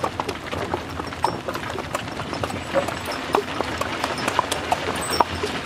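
Hooves of two Hucul horses clip-clopping on an asphalt road as they pull a wagon: a quick, uneven run of overlapping hoof strikes.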